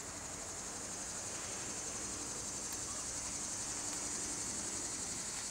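Cicadas droning in the trees: a steady, high-pitched buzz that slowly grows louder.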